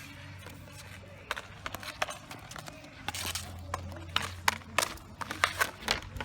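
Street hockey play on pavement: a run of sharp, irregular taps and clicks of stick, puck and shoes, starting about a second in, over a low steady hum.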